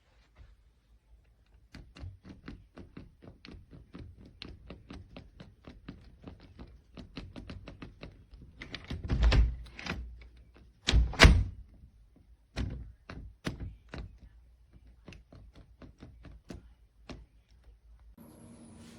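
Door lever handle and latch being worked: a long run of quick clicks and rattling knocks, several a second, with a few heavy thuds in the middle, as the handle and door are handled.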